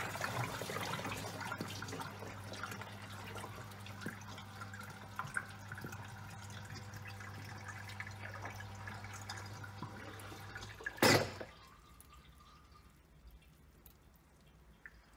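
Top-loading washing machine washing a load of towels: water sloshing and dripping over a steady motor hum. About eleven seconds in there is a brief loud splash-like surge, the motor hum stops, and only faint drips remain.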